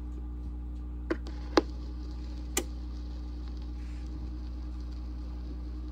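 Turntable stylus set down on a spinning vinyl record: three sharp clicks and pops in the first three seconds, the middle one loudest, over a steady low hum.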